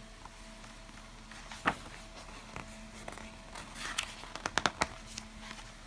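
Page of a picture book being turned by hand: a single click about a second and a half in, then a quick run of paper crackles and clicks about four seconds in as the page turns over.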